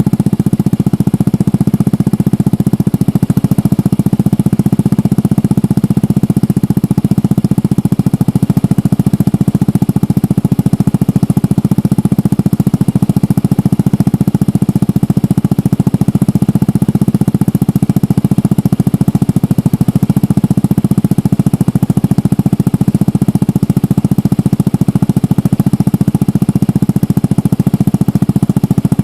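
Yamaha Majesty 125 scooter's single-cylinder four-stroke engine idling steadily through a Yoshimura Cyclone aftermarket exhaust, a thick, even exhaust note with no revving.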